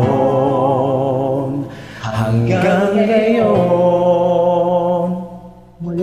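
A man singing long held notes with vibrato over a soft karaoke backing track, with a short break about two seconds in and a fade just before the end.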